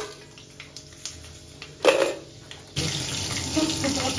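Seeds and green chillies hitting hot oil in a kadai: a sharp knock a little under two seconds in, then a loud, steady sizzle that starts suddenly near the three-second mark and keeps going.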